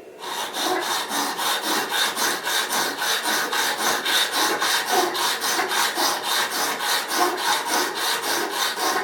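Whetstone on a guided-rod sharpening jig rubbed quickly back and forth across a vegetable peeler's steel blade: a steady, even rasping scrape, several strokes a second, that stops at the end. The stone is grinding out a worn hollow in the middle of the blade.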